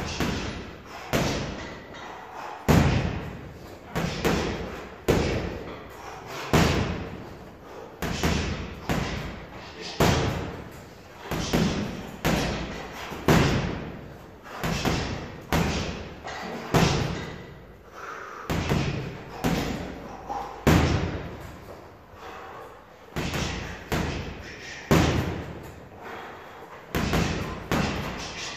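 Boxing gloves punching a hanging leather heavy bag in quick combinations: sharp thuds, several a second in bursts, each ringing briefly in the room.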